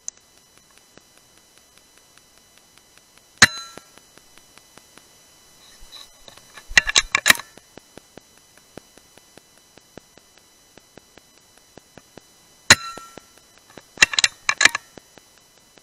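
R10 Mk2 .177 PCP air rifle fired twice, about nine seconds apart, each shot a sharp crack with a brief metallic ring. A few seconds after each shot comes a quick run of metallic clicks as the action is cycled to load the next pellet.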